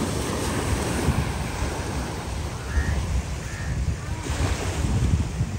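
Wind buffeting the microphone in an uneven low rumble, over the wash of small waves lapping at the waterfront.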